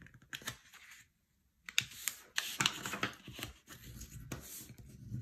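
A sheet of printed paper being folded corner to corner and its crease pressed flat: paper rustling with scattered light taps and clicks, broken by a brief near-silent gap about a second in.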